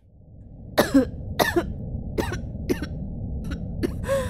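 A young woman's voice giving a series of short, hacking coughs, about six of them, after being grabbed by the throat, over a low steady background rumble.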